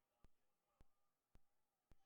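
Near silence with faint, sharp ticks repeating evenly about twice a second.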